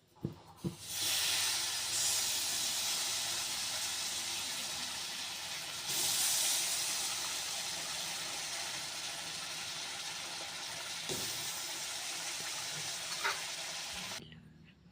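Jaggery heating in a hot wok, sizzling steadily as it melts; two short knocks open it, and the sizzle stops abruptly near the end.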